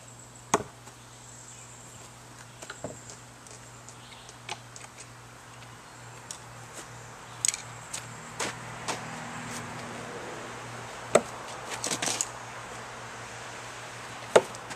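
A thrown screwdriver striking a wooden log-round target with a sharp knock near the end. A similar sharp knock comes about half a second in, with scattered lighter clicks in between.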